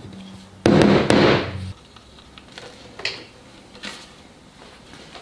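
Claw hammer tapping wooden dowels into a timber rail: a quick run of sharp, loud taps under a second in. Then a few lighter wooden knocks.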